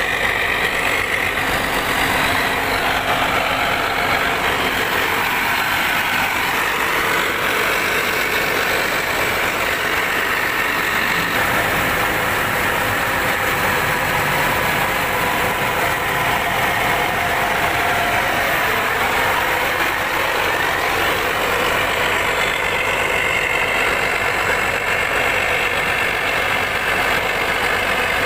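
Intercity bus's rear-mounted diesel engine idling steadily.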